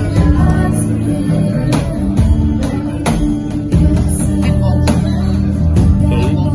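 Live acoustic pop performance: a girl singing into a microphone over a strummed acoustic guitar, amplified through PA speakers.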